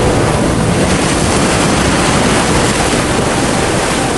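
Fast-flowing muddy floodwater rushing past, a loud, steady wash of noise.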